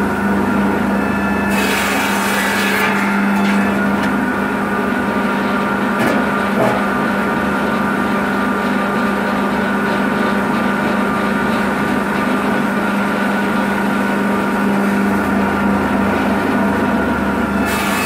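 Rosselli S-M650 table circular saw with a carbide-tipped (widia) blade, its electric motor running with a steady hum. The blade cuts through a branch about two seconds in and again near the end, a short harsh rasp each time.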